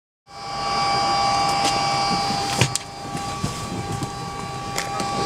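Steady whine and air rush of running aircraft machinery, heard inside an airliner by its door. The sound fades in just after the start, with a sharp knock about two and a half seconds in and a few lighter clicks.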